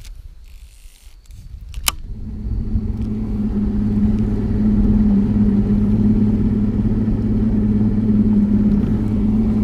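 Two sharp clicks, then from about two seconds in a bass boat's outboard motor running steadily as the boat moves across the water, growing louder over the next few seconds and then holding.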